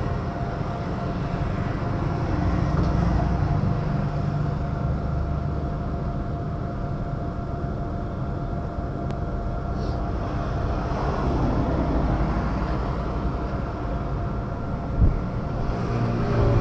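Bajaj Pulsar 220F's single-cylinder engine idling steadily with the emission-test probe in its exhaust, during a pollution (PUC) test.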